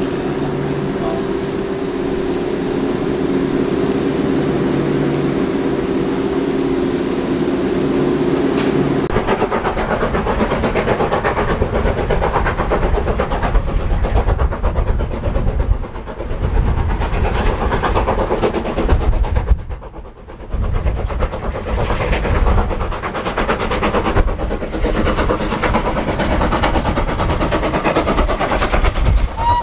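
A steady low hum for about the first nine seconds. Then a steam tank locomotive hauling a train comes closer with its exhaust beating hard, a rough, pulsing chuffing that runs on to the end.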